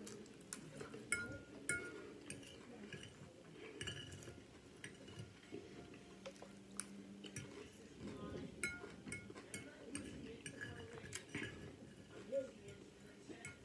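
Cutlery clicking and clinking against a dish at irregular intervals, with chewing of crispy chicken salad underneath.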